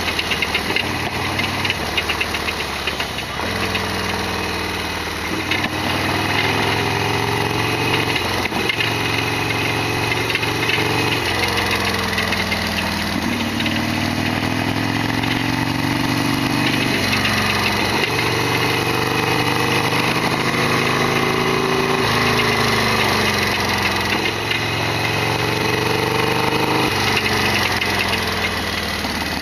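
Harley-Davidson Sportster XL1200R's air-cooled 1200 cc V-twin running under way. Its pitch climbs and then drops suddenly several times as it shifts up through the gears, with slower falls as it slows. A loud abnormal mechanical noise runs over the engine sound, one that the owner flags on this bike.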